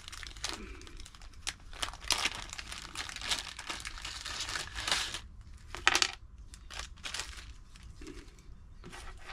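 Clear plastic packaging bag crinkling and rustling as it is handled and opened. The rustling is densest for the first five seconds, with a sharp crackle about six seconds in and quieter handling after.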